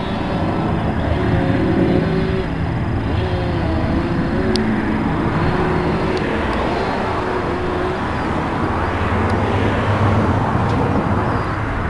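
Firefighting helicopter flying close by: its rotor and engine give a loud, steady running noise, with a wavering engine tone.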